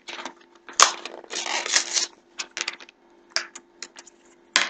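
A small plastic pot of bronzer and its packaging being opened by hand: a sharp click about a second in, a short rustle, then a string of light plastic clicks and taps.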